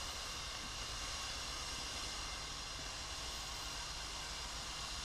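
Steady, even background noise with a low rumble and no distinct events.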